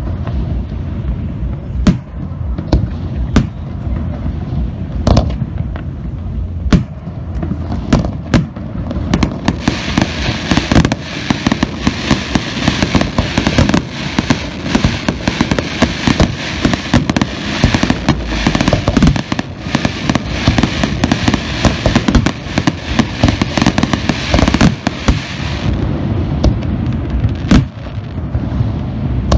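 Aerial fireworks display: shells bursting in frequent sharp booms. From about ten seconds in until a few seconds before the end, a dense, continuous crackling lies over the booms.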